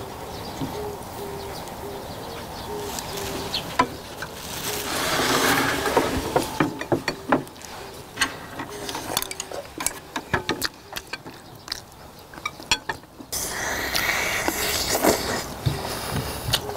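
People eating braised chicken drumsticks: chewing and slurping, with scattered clicks of chopsticks and tongs on porcelain bowls.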